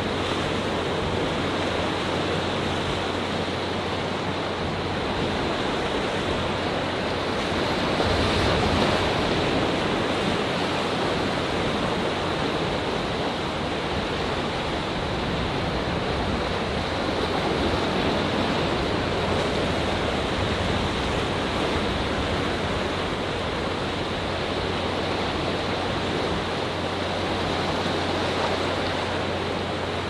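Rough Atlantic surf breaking and washing among coastal rocks: a steady rush of waves that swells a little louder about eight seconds in and rises gently again a few more times.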